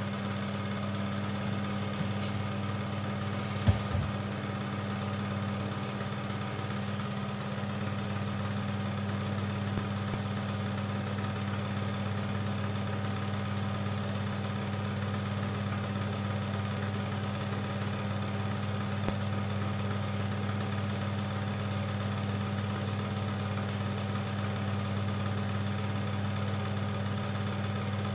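Super 8 film projector running with a steady mechanical hum, with one sharp click about four seconds in.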